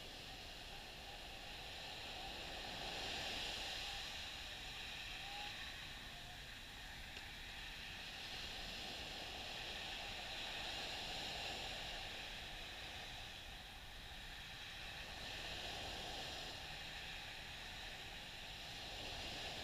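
Gentle surf washing up on a sandy beach: a soft, steady hiss of breaking waves that swells and eases several times.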